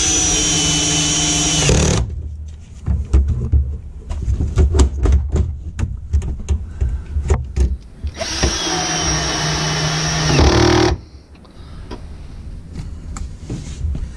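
A cordless driver with a socket spinning console fasteners in two runs of about two and a half seconds, each a steady motor whine that stops abruptly. Between the runs come scattered clicks and knocks of tools and parts being handled.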